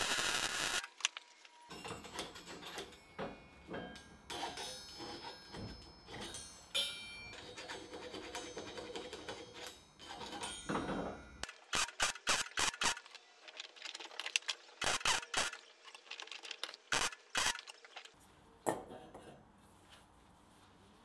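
A welding arc crackles for under a second at the start, then steel parts of a forged spider sculpture clink, scrape and rattle as they are handled in a bench vise, with several groups of sharp metallic taps in the second half.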